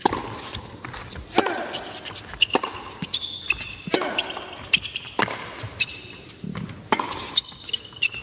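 Tennis rally on an indoor hard court: sharp pops of the ball off the racquets and the court every half second to a second, short squeaks of shoes on the court, and brief grunts from a player on some shots.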